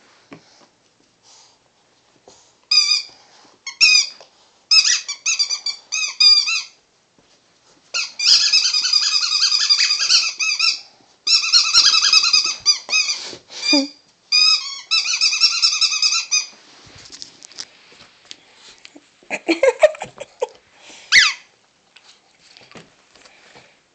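Green rubber squeaky chew toy squeaking in rapid bursts as a Boston Terrier puppy chews it. The squeaks come in short bursts at first, then in long runs through the middle, and there are a few lower, shorter squeals near the end.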